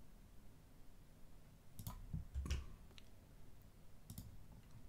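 A few separate clicks of computer keyboard keys and mouse buttons, about four, spread over the second half.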